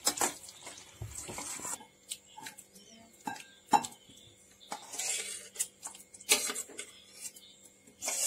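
A metal spoon scraping and clinking against a steel cooking pot as thick curry is scraped out into a glass bowl, with a series of sharp, irregular clinks.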